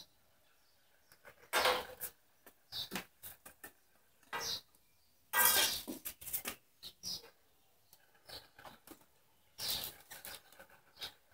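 Tools and small parts being handled on a worktable: irregular clinks, knocks and rustles with short quiet gaps, the loudest a clattering stretch of nearly a second about halfway through.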